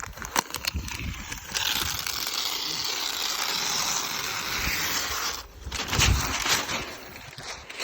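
Aerosol spray can of black paint hissing in one steady spray lasting about four seconds, starting about a second and a half in, with a few handling knocks around it.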